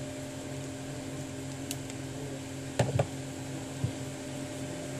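A steady electrical hum throughout, with two small sharp clicks about three seconds in and a fainter tap just before four seconds, as the smartphone's glass and frame are handled.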